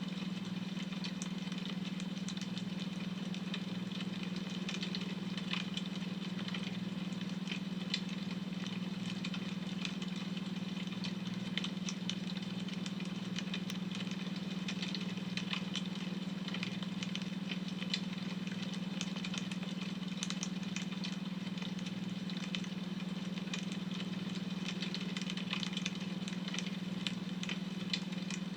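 Wood fire crackling, with frequent small pops and snaps, over a steady low hum from a beta-wave brainwave tone.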